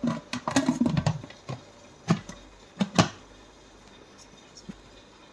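Wonderchef Nutri-Pot electric pressure cooker lid being handled and adjusted by hand: a spell of clicks and knocks in the first second, then three sharp clicks around the middle.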